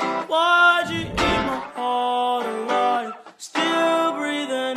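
Intro music led by a guitar playing held chords that change every half-second or so, with a low thump about a second in.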